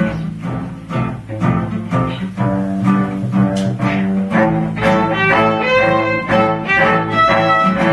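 Instrumental music on strings: a steady rhythm of repeated notes, with long held notes coming in about halfway through.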